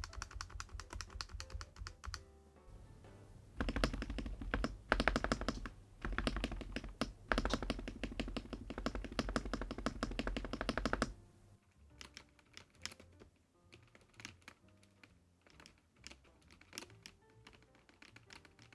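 Typing on a YUNZII B75 Pro gasket-mounted mechanical keyboard with YUNZII MILK switches and PBT keycaps: fast continuous keystrokes in two runs, the longer one from about 3.5 to 11 seconds, then slower, scattered single key presses.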